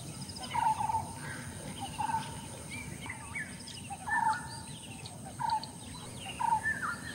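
Birds calling: one bird repeats a short call every second or two, with higher chirps from other birds, over a steady faint high-pitched hiss.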